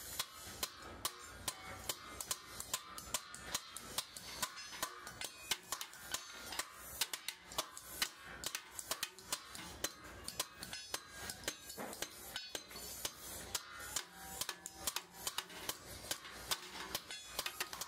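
Metal being struck or tapped over and over: sharp, irregular clinks, a few a second, each with a brief high ring.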